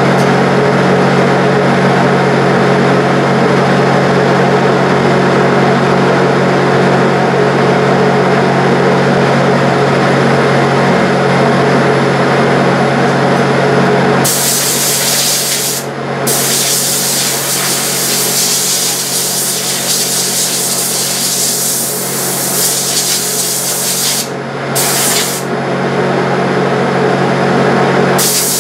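Spray booth exhaust fan running with a steady drone and hum. About halfway in, a hose-fed spray gun starts hissing for about ten seconds as it sprays finish, then gives a short burst and starts again near the end.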